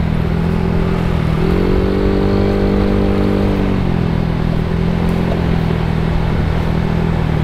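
Bored-out 150 cc Yamaha Mio scooter, a single-cylinder four-stroke with a CVT, running under way with wind and road noise. The engine note rises about a second and a half in, holds, and falls back about four seconds in.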